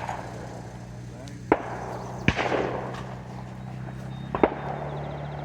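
Shotgun shots: two sharp reports under a second apart, then a second pair close together a couple of seconds later, each ringing briefly over a steady low hum.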